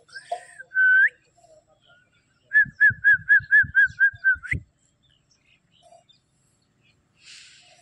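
Short whistled notes: one whistle that flicks upward about a second in, then a quick run of about nine short notes at the same pitch, about four a second, ending on a rising note. This is the sort of whistle used to call puppies.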